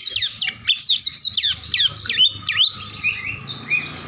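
Oriental magpie-robin singing its harsh-toned ("kasar") song: a fast run of sharp, steeply falling whistled notes, turning softer and sparser after about three seconds.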